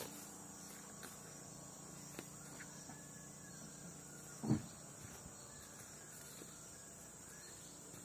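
Steady high-pitched drone of insects, with a few faint clicks and one low thump about halfway through.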